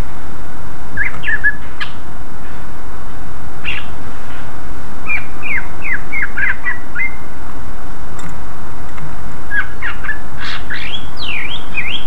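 Green leafbird (cucak ijo) singing loudly in short bursts of quick, sharp whistled notes that slide up and down: a brief phrase about a second in, a run of falling notes in the middle, and a faster, denser run near the end, over a steady hiss.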